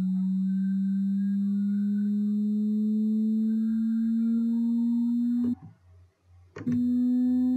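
Pure sine-wave test tone from a frequency-sweep video, gliding slowly upward from about 190 Hz to about 245 Hz. It cuts out for about a second near the end, with a click at each edge, then comes back at the same pitch.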